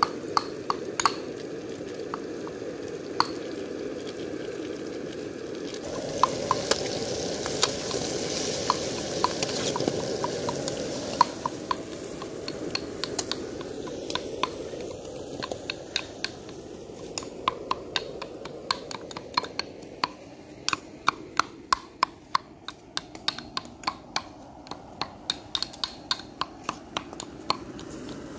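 Curry base of onions and chili powder frying in a metal pan, with a steady sizzle. A metal spatula stirs it, clicking and scraping against the pan, and the taps grow quick and frequent in the second half.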